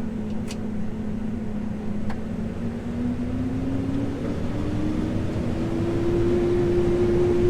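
Case IH AF9 combine running, heard from the cab, with a steady whine that rises in pitch from about three seconds in and levels off higher as the machine speeds up while the head and feeder are run forward again after clearing a jam.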